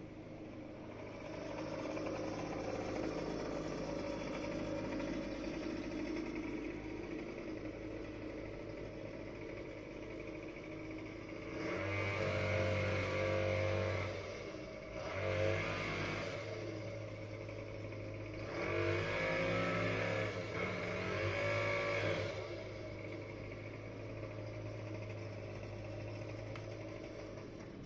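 Small petrol engine running steadily, revved up three times in the middle stretch and then settling back.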